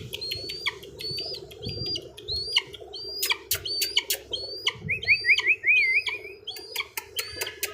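Young eagle chick calling: a run of short, high, rising whistled peeps, about two a second, with a brief wavering trill about five seconds in.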